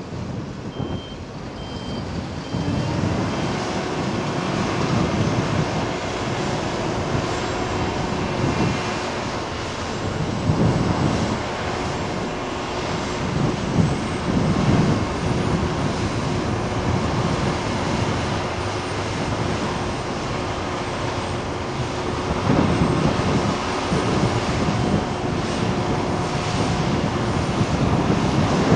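Diesel engines of heavy earthmoving and road-building machinery running under work. The sound grows louder over the first few seconds, then holds as a steady drone with a rumbling low end. Four short high beeps sound in the first few seconds.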